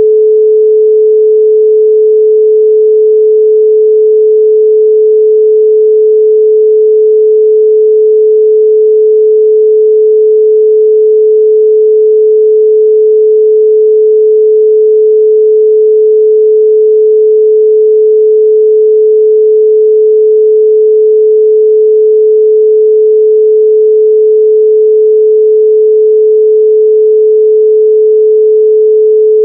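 A loud, steady 432 Hz pure sine tone, holding one unchanging pitch with no overtones.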